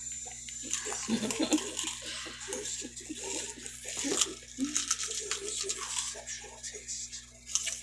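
People eating with their mouths close to the microphone: chewing with many short, sharp clicks and smacks, and a few brief low voice sounds like chuckles.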